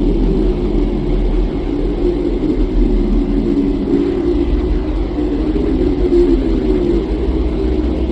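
Steady, deep rumbling drone that runs without a break, with no clear pitch changes or individual events.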